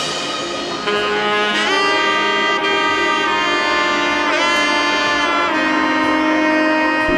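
Background jazz music: a wind instrument plays a melody of long held notes with a few sliding bends.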